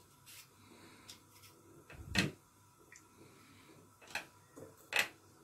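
Hands spreading shredded kunafa pastry evenly over a thin aluminium baking tray, with a few light knocks and crinkles from the tray: the loudest about two seconds in, two more near the end.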